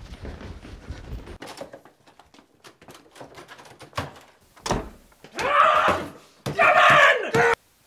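Scuffling steps and small knocks, a thump against a stairwell door, then two loud strained cries; the second cry is cut off suddenly.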